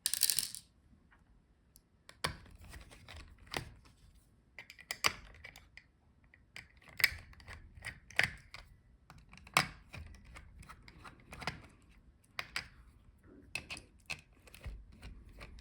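Irregular small clicks and taps of a screwdriver and tools working the screws of a laptop's heatsink and cooling fan assembly, about one sharp click every second or so.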